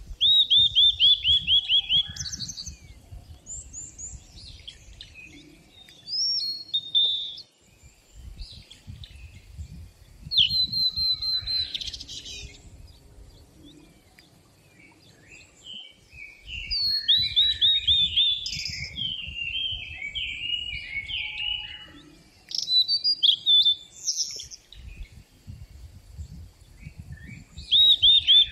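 Forest songbirds singing. A bright phrase of rapid, quickly falling notes comes back several times, with assorted chirps and warbles between and brief lulls.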